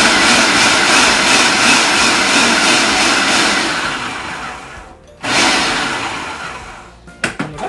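Electric food processor pulsing, its blade chopping quartered tomatoes: one long run that dies away about five seconds in, then a second, shorter pulse. A few sharp knocks near the end.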